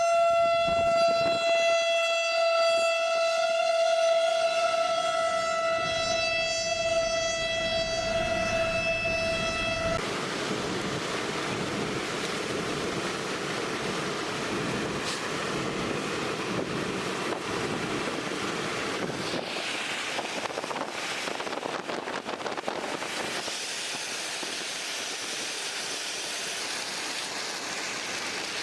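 A steady, single-pitched warning tone, like a siren or horn, sounds for about ten seconds and cuts off abruptly. After it comes a steady rush of wind and rain noise.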